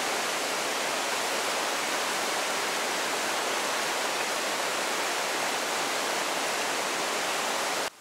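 Steady rush of water over the rocky steps and rapids of a waterfall, with no change in level; it cuts off suddenly near the end.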